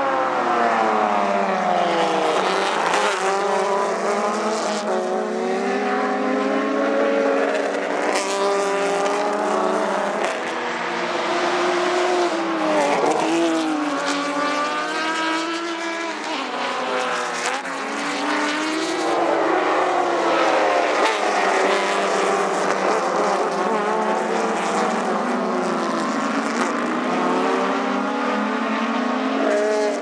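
Several TC Bonaerense race cars with inline-six engines running at full throttle past the track, their overlapping engine notes repeatedly rising and falling in pitch as they accelerate and go by.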